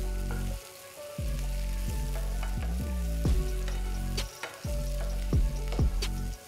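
Sliced mushrooms and onions sizzling in oil in a non-stick frying pan while a wooden spatula stirs them, with a few short knocks and scrapes of the spatula against the pan.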